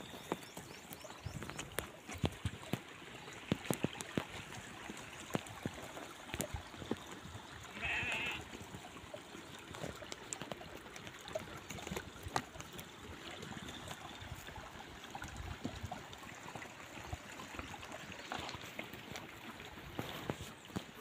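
Flock of sheep grazing on stony ground, with many scattered light clicks of hooves among the stones. One sheep bleats once, about eight seconds in.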